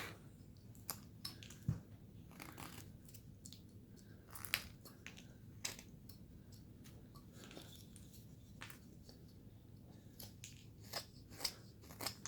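Carving knife slicing and shaving basswood: a string of short, crisp cuts at irregular spacing, a few louder snips among them.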